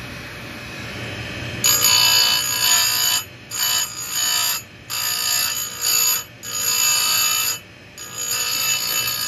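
Bench chain grinder's motor running with a steady hum, then its abrasive wheel grinding a saw-chain cutter tooth with a loud, shrill grinding noise. The grinding comes in about five passes with short breaks as the wheel is lowered and lifted, taking down a damaged tooth a little at a time.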